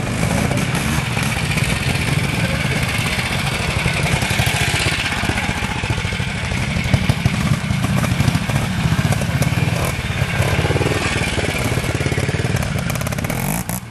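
Vintage trial motorcycle engine running at low revs, its loudness rising and falling unevenly as the throttle is worked on a steep dirt climb.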